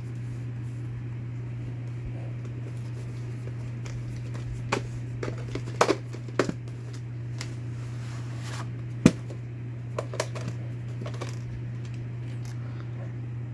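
Steady low electrical hum with a dozen or so scattered clicks and knocks; the sharpest comes about nine seconds in.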